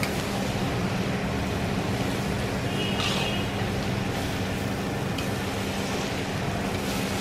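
Steady sizzling and burner noise from a large kadai of curry cooking, with a metal spatula stirring and scraping the pan now and then. There is a brief high ringing about three seconds in.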